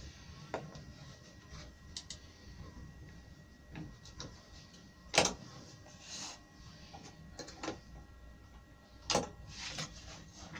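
Scattered light knocks, taps and scrapes of a sheet of MDF being shifted into place on a wooden rail and an F-clamp being set on it, the loudest knocks about five and nine seconds in.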